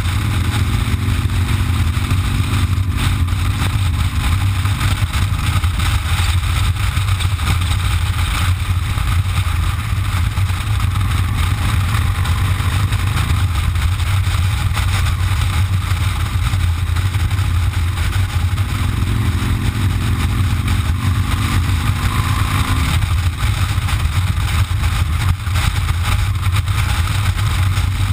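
Cruiser motorcycle engine running steadily while riding, heard over a constant rush of wind on the mic. The engine note shifts in pitch near the start and again about twenty seconds in.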